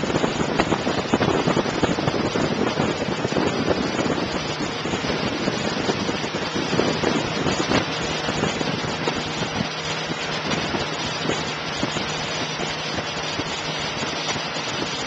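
Motorboat running at speed: a steady low engine hum under wind buffeting the microphone and the rush of the churning wake.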